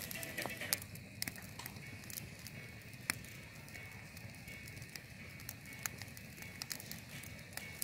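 Wood campfire burning in a fire pit, crackling with scattered sharp pops; the loudest pops come under a second in and about three seconds in.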